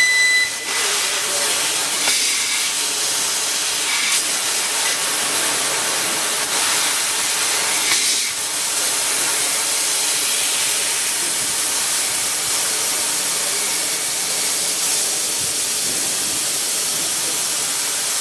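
CNC laser cutter cutting 20 mm aluminium plate: a steady, loud hiss of the assist-gas jet blasting through the cut.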